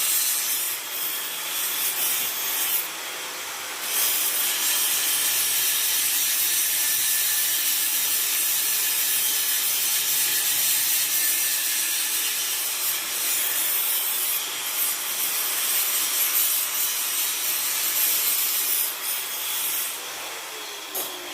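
Electric angle grinder running with a loud, harsh noise and a faint steady whine, dipping briefly twice. Near the end it is switched off and the whine falls in pitch as it winds down.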